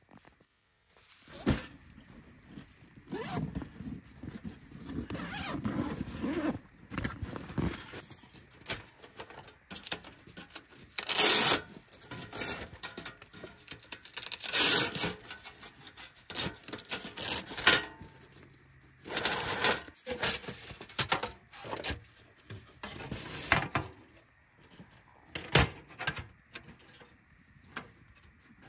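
A Pomoly T1 Ultra 3 folding titanium wood stove being unstrapped and unfolded by hand: light metal clanks, scrapes and squeaks of thin titanium panels, with handling noise in between.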